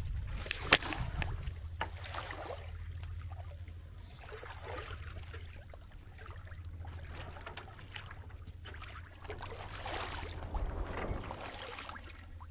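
Water rushing and splashing along a sailing yacht's hull as it moves, in uneven surges, over a steady low hum. One sharp click about a second in.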